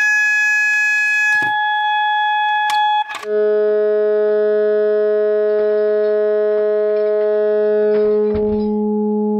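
Electronic fire alarm sounding steady tones: a higher tone for about three seconds, then after a brief break with a couple of clicks, a lower, buzzy continuous tone. A knock is heard about eight seconds in.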